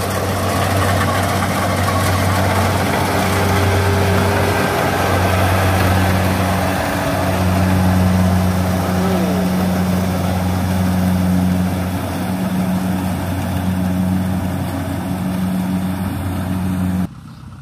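Kubota DC70 rice combine harvester running while it cuts and threshes ripe rice: a steady low diesel engine drone under a broad rushing noise from the machine. The sound cuts off abruptly near the end.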